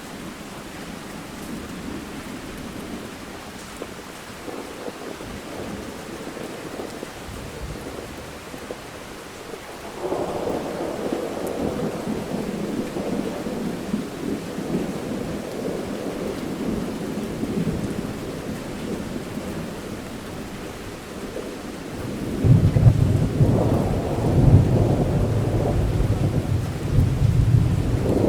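Steady rain with rolling thunder. One long thunder roll comes in suddenly about ten seconds in and fades slowly, and a louder, deeper rumble starts near the end.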